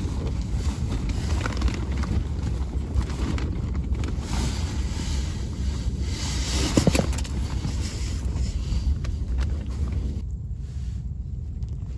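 Strong storm wind buffeting the microphone, a steady low rumble with gusty hiss above it. The hiss thins out about ten seconds in.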